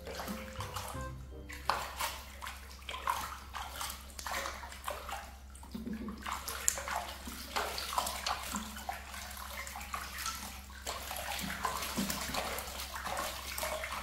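Water splashing and sloshing in a bathtub with many short irregular splashes as a baby monkey bathes, over quiet background music.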